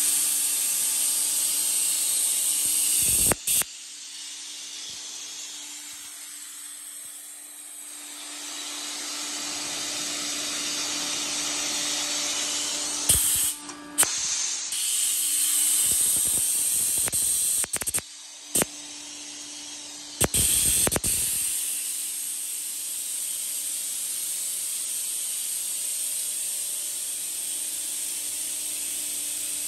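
HWH EC7 10 hp rotary screw air compressor, driven by its three-phase electric motor, running: a steady hiss of moving air over a steady hum. It grows quieter about four seconds in and louder again after about ten seconds, with a few brief knocks along the way.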